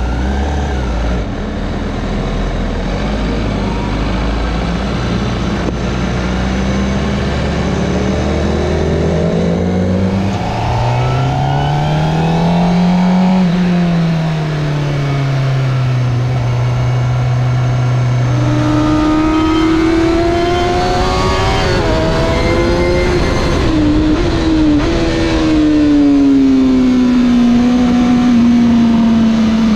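Honda CBR1000RR-R SP's inline-four engine heard from on board, pulling away from a standstill and accelerating through the gears. The note starts low and steady, then rises and falls with the revs, running higher in the second half, over rushing wind.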